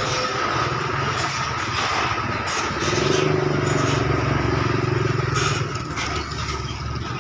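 Large bus diesel engine running close by, growing louder for a couple of seconds mid-way and then easing off, over the steady din of terminal traffic.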